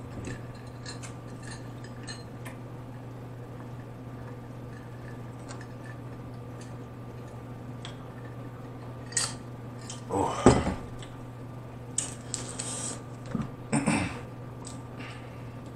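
Snow crab leg shells clicking and tapping as they are handled, then cracking and snapping as a leg is broken apart by hand, with the louder snaps in the second half.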